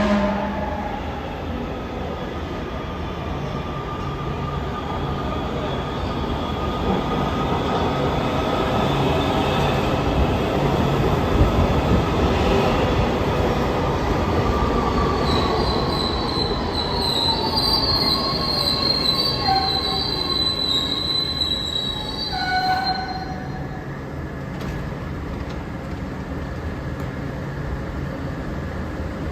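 Subway train pulling into an underground station. Its motor whine falls in pitch as it slows, then a high brake and wheel squeal rises for several seconds and cuts off as the train stops, about three-quarters of the way through. A steady low hum of the standing train follows.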